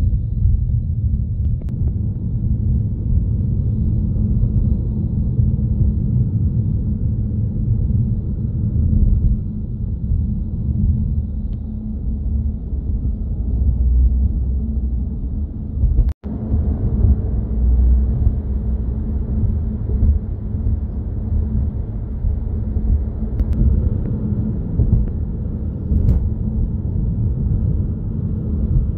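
Steady low rumble of a car on the move, heard from inside the cabin: tyre and engine noise while driving. It cuts out for an instant a little past halfway.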